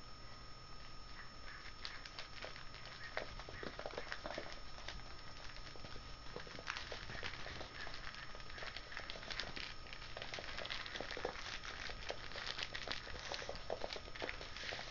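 Two Pomeranian puppies scuffling on a hardwood floor: their claws tapping and scrabbling in quick, irregular clicks, busiest in the second half.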